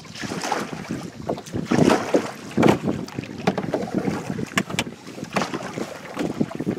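Wind buffeting the microphone while small waves slap and gurgle against the hull of a moving canoe, in uneven gusts, with a few sharp knocks.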